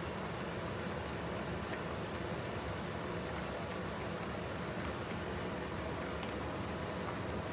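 Pot of fish soup at a rolling boil, bubbling steadily.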